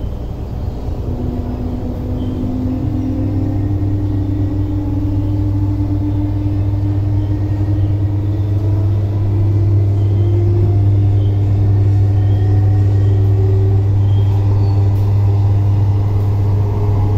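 Metro-Cammell (MLR) electric train running, heard from inside the passenger car: a heavy, bass-heavy hum from its DC traction motors, which the uploader puts down to the motors' age. The hum grows louder over the first ten seconds or so, with a fainter whine gliding slowly upward in pitch.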